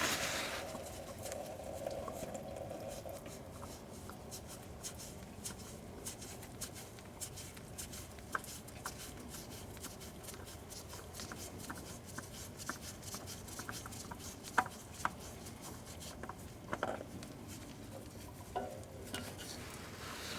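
Motor oil dripping from the oil filter mount into a drain pan, heard as faint scattered drips and small taps, with a few louder clinks.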